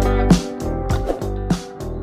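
Background intro music with a steady beat.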